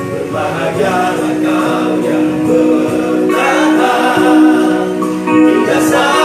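Male vocal group of six singing together in harmony, a new phrase starting just after the start.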